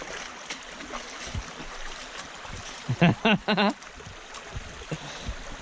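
River water rushing steadily over rocks, with a short pitched vocal cry from a person about three seconds in.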